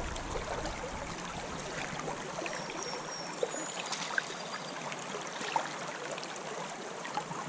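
Creek water running steadily, with a few faint clicks scattered through it.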